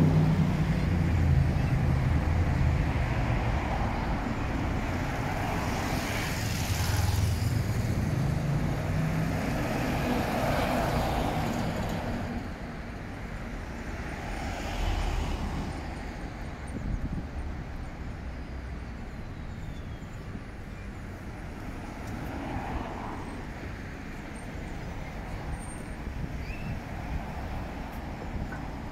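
City street traffic: cars and vans passing with engines rumbling and tyre noise. Louder for the first twelve seconds or so, then settling to a quieter steady hum.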